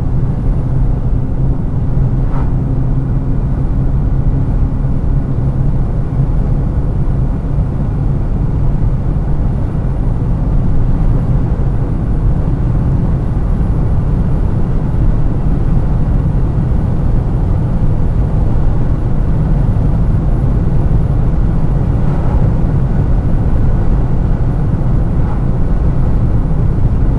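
Car cabin road noise at highway speed: a steady drone of tyres and engine as the car speeds up from about 105 to 125 km/h.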